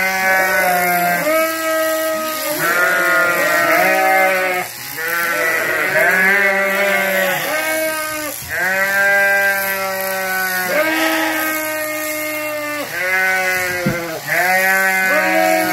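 Sheep bleating over and over, one call after another with hardly a break, several voices at different pitches often overlapping.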